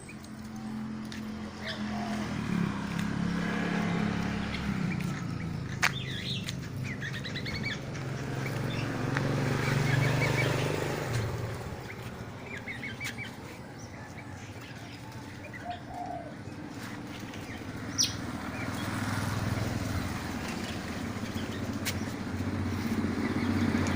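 Songbirds giving short chirps and calls every few seconds, over the low hum of motor vehicles passing that swells and fades several times. A couple of sharp clicks stand out, one about six seconds in and one about eighteen seconds in.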